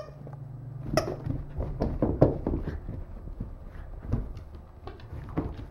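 A Shiba Inu moving about and trotting with a plush squeaker toy in its mouth: an irregular run of light taps and clicks from its paws and the toy.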